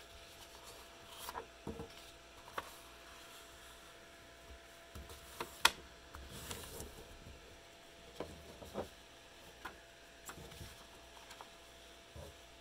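A sheet of construction paper being handled and folded: faint rustling and sliding as it is lifted and pressed flat, with scattered light taps and one sharp click about halfway through.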